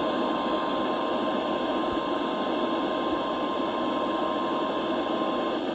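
Weather radio receiving through heavy static: a steady hiss with a single steady alert tone near 1 kHz (the NOAA Weather Radio 1050 Hz warning alarm tone) sounding over it. The tone cuts off shortly before the end, leaving the static.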